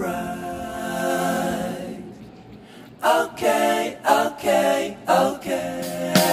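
Background music of unaccompanied singing: a long held note fades out about two seconds in, then a new phrase of short sung notes begins.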